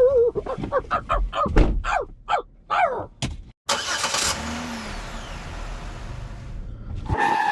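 A car engine starts with a short burst of noise about halfway through and then runs steadily. Before it comes a quick run of short, swooping high-pitched cries, and a single steady tone sounds near the end.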